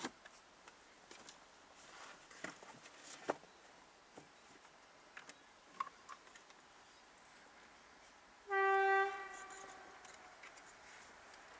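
Train horn: one short, steady single-tone blast about two-thirds of the way in, trailing off over the next second. A few faint clicks and knocks come before it.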